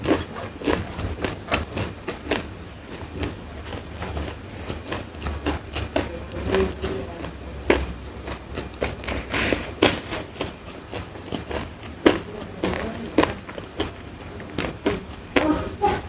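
Close-miked chewing of crisp food: irregular crunches and wet clicks, several a second, with a faint low hum underneath.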